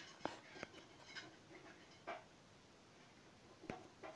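Near silence with a handful of faint, sharp clicks at irregular intervals: taps while typing on a phone's on-screen keyboard.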